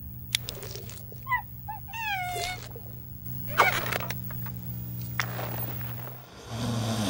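Designed sci-fi soundscape: a steady low electrical hum runs under a few squeaky, falling cartoon-creature chirps and short clicks. Near the end the hum drops away and a hissing swell with a low wavering rumble begins.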